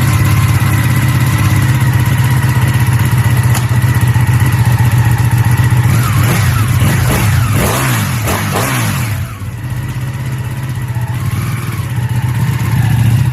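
Ducati motorcycle engine running steadily, revved up and down a few times about halfway through, then settling back down.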